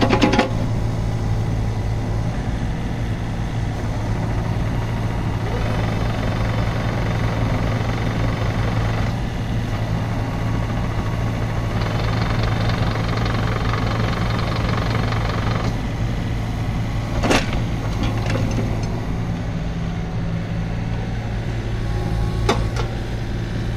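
Yanmar VIO33-6 mini excavator's three-cylinder diesel engine running steadily while the boom, bucket and upper structure are worked, with a hydraulic hiss that rises in stretches. A few sharp metallic clanks, the loudest about 17 seconds in and another near the end.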